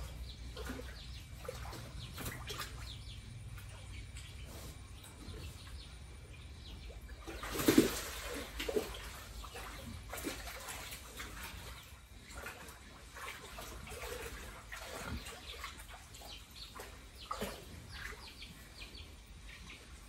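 Pigs moving about a wet pen, with splashing and scattered short animal noises. One louder sudden noise comes about eight seconds in, followed by a smaller one.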